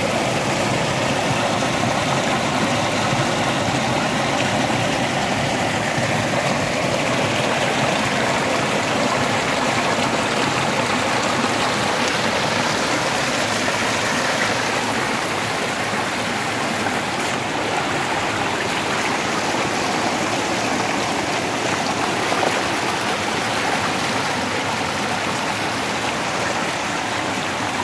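Rain-swollen water rushing steadily down a pond's overflow spillway channel, pouring out from under a culvert after heavy rain.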